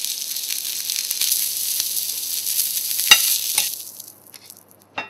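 Venison loin sizzling as it sears in hot oil in a black frying pan. About three seconds in, two sharp metal clicks as it is lifted out with tongs, and the sizzling fades away.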